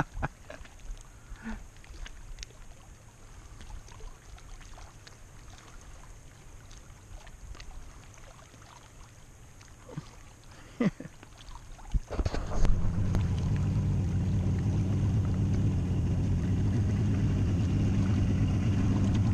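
Faint clicks and handling over quiet shoreline ambience, then about twelve seconds in a boat's outboard motor comes in and runs steadily at idle.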